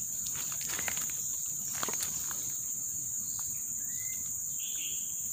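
Steady high-pitched drone of forest insects, with scattered crackles of footsteps on dry leaf litter and a single short chirp about four seconds in.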